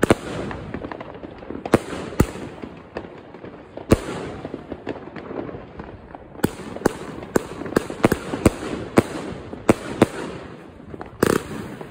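Lesli 'Mobster' 25-shot 30 mm fireworks cake firing: a few single bangs spaced over the first four seconds, then a quicker run of bangs about two a second from around six and a half seconds in.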